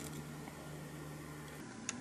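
Quiet room tone with a steady low hum that drops out about one and a half seconds in, and a faint click just before the end.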